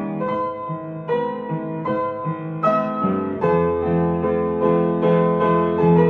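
Instrumental music: notes and chords struck about once or twice a second over sustained tones, at a gentle pace.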